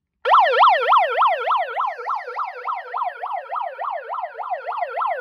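Handheld megaphone's built-in siren sounding, a fast up-and-down yelp of about three to four sweeps a second. It starts abruptly just after the beginning and is loudest in its first second.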